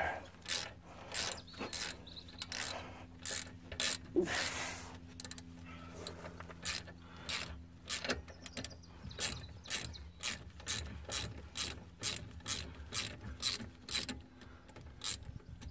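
Socket ratchet clicking as it is swung back and forth, a steady run of short clicks about two a second, while the lower slide bolt of a front brake caliper is undone.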